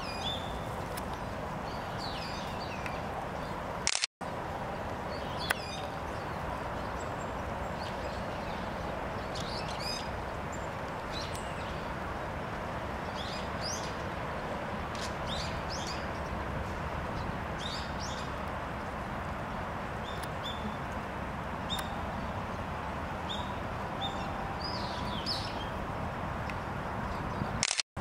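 Eurasian siskins calling: short, thin, high-pitched chirps and twitters, scattered irregularly throughout, over steady background noise.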